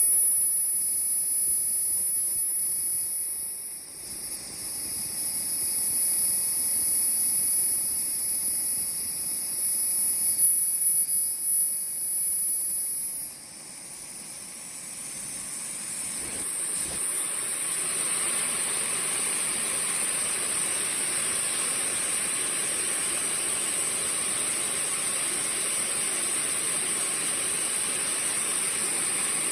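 Small model turbojet engine (IQ Hammer 90+) running with a high whine over a rushing hiss. About halfway through it spools up, the whine climbing in pitch and the hiss growing louder, then it holds steady at the higher speed.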